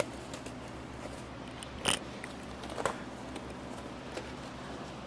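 Plastic bag crinkling and small clicks as engine parts are unwrapped and handled, with a louder crackle about two seconds in and another about a second later, over a steady low hum.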